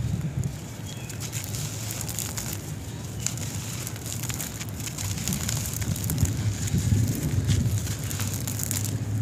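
Bare hands crushing dry, crumbly clumps of cement and sand: a steady crackle of grains breaking, with dry powder and crumbs trickling out between the fingers. Low rumbling from the hands pressing into the heap grows stronger in the second half.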